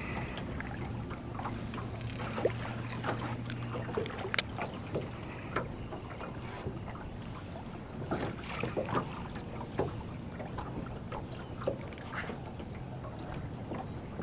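Small waves lapping and slapping against a fishing boat's hull, with scattered light knocks. A low, steady hum from the bow trolling motor holding position runs for the first few seconds, stops, and comes back briefly near the end.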